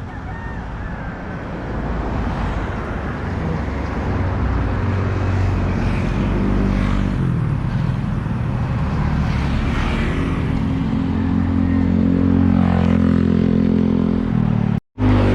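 Street traffic with a motor vehicle engine running close by, its pitch stepping up and down as it changes speed. The sound cuts out for a moment near the end.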